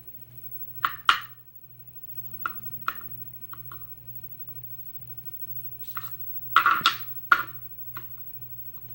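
Short, sharp clicks and taps of small metal lock parts, the pins and pin springs of a disassembled American Series 700 padlock, being handled and set down, with a quick cluster of clicks about two thirds of the way in.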